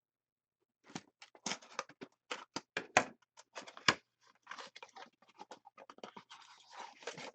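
Hands handling trading cards and their packaging: a run of sharp clicks and taps from about a second in, then a stretch of scratchy rustling in the second half.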